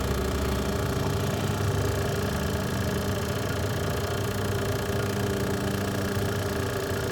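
HVAC vacuum pump running steadily with an even mechanical drone, pulling a deep vacuum on an air-conditioning system.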